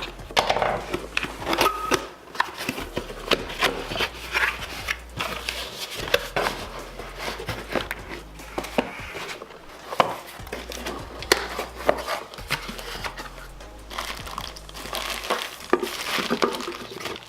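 A headset-cable box being unpacked by hand: packaging crinkling and rustling, with many scattered taps and clicks.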